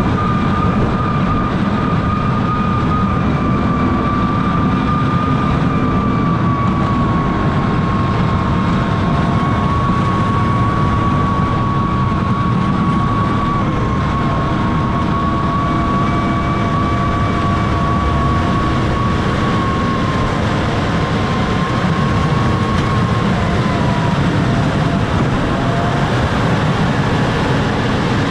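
John Deere 6155R tractor's diesel engine running steadily under load as its front snowplow pushes snow along the road, with a high whine that drifts slowly lower and fades out about 24 seconds in.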